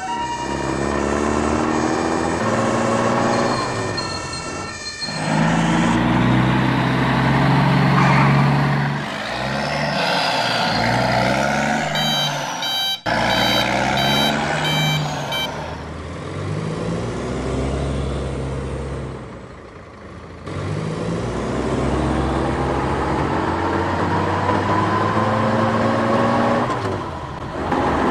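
Truck and car engine sound effects, running and speeding up as vehicles pull in. A reversing beeper beeps evenly for a few seconds about halfway through.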